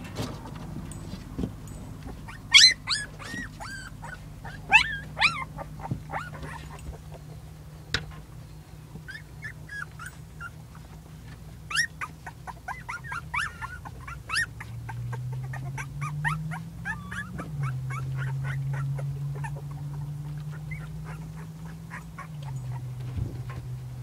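Young husky puppies whimpering and yipping in short, high-pitched cries that come in clusters, the loudest a few seconds in. A low steady hum runs underneath and grows louder in the second half.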